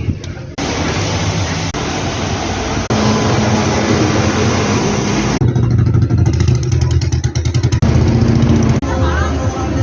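Rainy street traffic: a steady hiss of rain and wet road with vehicle engines running. It changes abruptly several times, and from about five and a half seconds in a vehicle engine gets louder with a rapid pulsing rumble.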